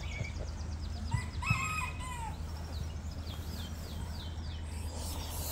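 Farmyard fowl calling: one louder drawn-out call about a second in, over runs of quick high chirps repeated several times.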